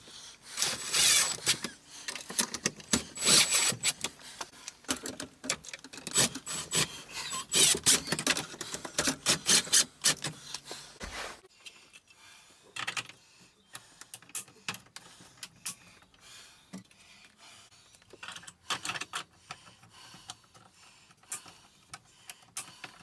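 Cordless drill driving screws into plastic housings in a string of short runs for about the first eleven seconds. After that come lighter scattered clicks and knocks as the parts are handled and plastic covers are pressed into place.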